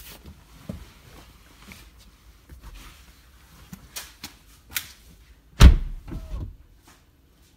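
Handling noise inside a car cabin: a few small clicks and rustles, then one heavy, bass-heavy thump about five and a half seconds in.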